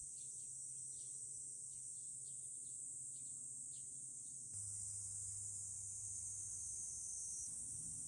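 Steady high-pitched insect chorus, faint, growing a little louder about halfway through.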